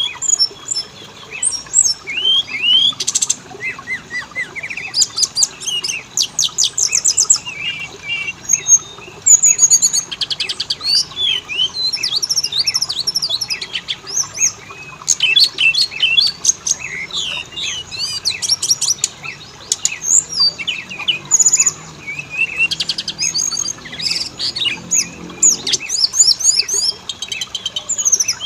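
Oriental magpie-robin (kacer) singing without a break: a quick, varied string of sharp chirps, rising and falling whistles and fast rattling trills.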